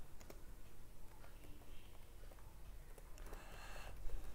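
Faint computer keyboard keystrokes, a few scattered clicks, with a short soft hiss a little before the end.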